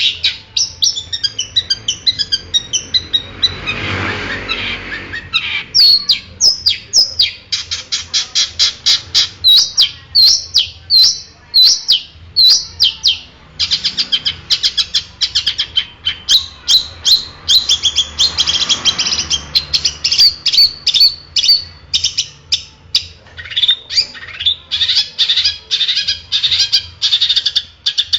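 Long-tailed shrike (cendet) singing: loud, fast runs of short high chirps and trills, several notes a second with brief pauses, broken twice by a harsh, rasping passage.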